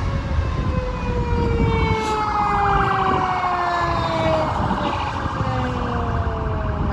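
A semi truck's air horn held for several seconds, several notes sounding together and slowly sliding down in pitch, over the low rumble of the truck.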